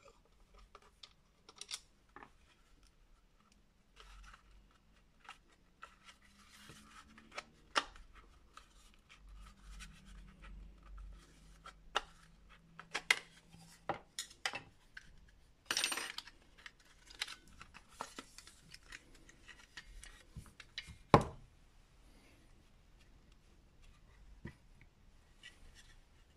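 Plastic case of a Parkside 20V cordless-tool battery being pried apart with a metal pick: light scraping and a run of irregular clicks and snaps as the shell's clips let go. The parts are knocked down on the work mat, the loudest knock about three-quarters of the way through.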